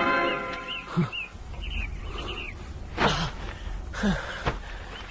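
Small birds chirping over and over, broken by four sudden sharp thumps about one, three, four and four and a half seconds in, the one about three seconds in the loudest.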